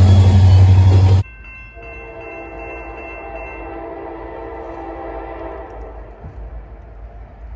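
Multi-chime train horn sounding a chord of several steady tones for about four seconds, then fading. It comes after a very loud, overloaded sound that cuts off abruptly a little over a second in.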